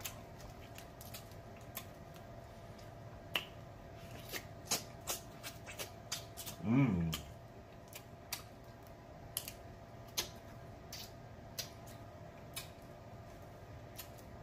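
Boiled snow crab leg shells cracking and snapping as they are broken open by hand: a string of sharp, irregular clicks, with a short hummed moan about seven seconds in.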